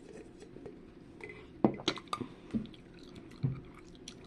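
A gummy frog candy being chewed close to the microphone: wet, sticky mouth sounds, with several sharp smacks between about one and a half and three and a half seconds in.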